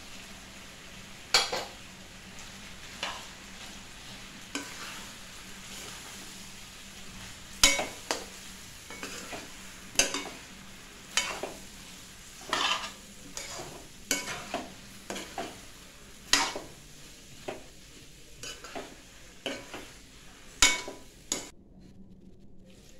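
Metal spoon stirring diced papaya in an aluminium kadai, clacking and scraping against the pan about once a second, over a steady frying sizzle that drops away near the end.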